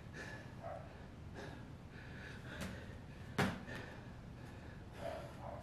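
A man breathing hard through push-ups, with short nasal exhales, and one sharp knock about three and a half seconds in.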